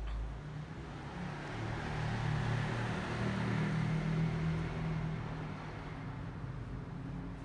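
Engine hum of a passing motor vehicle, swelling over a couple of seconds and then slowly fading.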